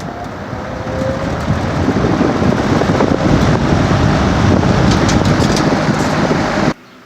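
A 1970s Champion 20-inch box fan with a Westinghouse motor starting up on medium speed. A rush of moving air grows louder as the blade comes up to speed, with a faint rising motor whine at first, then cuts off abruptly near the end.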